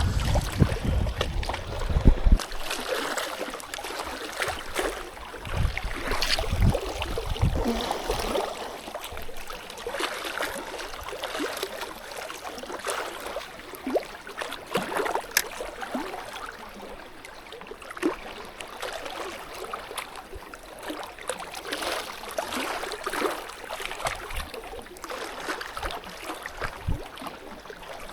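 Small waves lapping and trickling against the water's edge, with gusts of wind buffeting the microphone for the first couple of seconds and again around six seconds in.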